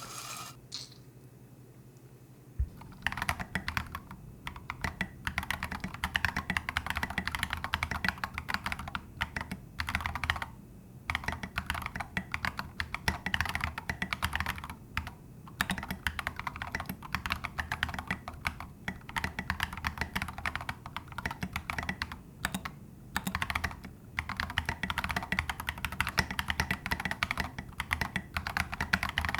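Typing on a mechanical keyboard fitted with SA-profile keycaps: a quick, dense run of key clicks that starts about three seconds in and goes on with a few short pauses.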